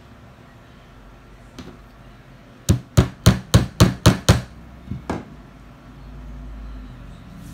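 A quick run of about seven sharp taps in under two seconds, then two lighter ones: a tool beating down the newly woven rows of a hand-repaired rug fringe.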